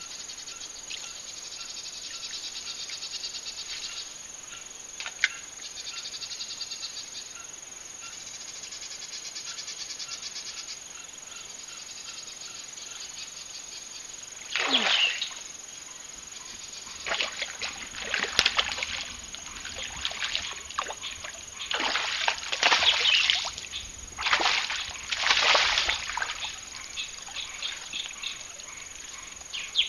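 Insects trilling steadily at first, then from about halfway in a run of loud, sudden splashes, one after another: a hooked largemouth bass thrashing at the water's surface as it is reeled in.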